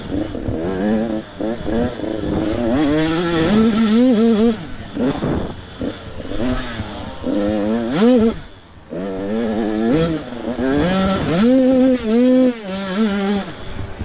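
Supermini motocross bikes racing, their engines revving up and falling back again and again as the throttle is worked, with a short lull about eight seconds in.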